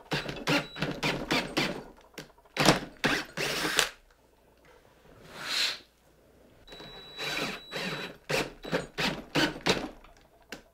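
Cordless drill boring into an antler held in a vise, run in many short bursts on the trigger, with a pause of about two seconds in the middle.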